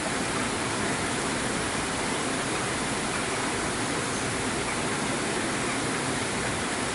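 Steady, even rush of running water, unchanging throughout.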